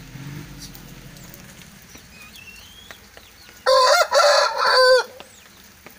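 A rooster crows once, loudly, about three and a half seconds in: a single crow of just over a second in several linked parts, ending on a falling note.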